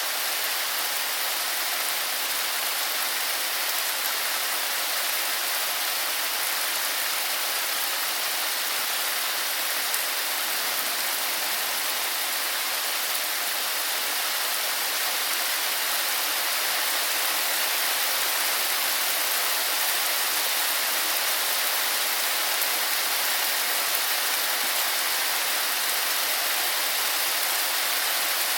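Steady rain falling: an even, unbroken hiss with no separate drops, thunder or gusts standing out.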